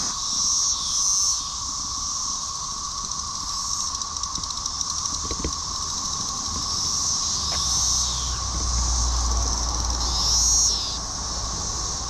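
Chorus of Brood XIX 13-year periodic cicadas: a loud, steady drone with a higher hissing buzz over it. Louder nearby calls swell and fall about a second in, around eight seconds in, and again near ten seconds.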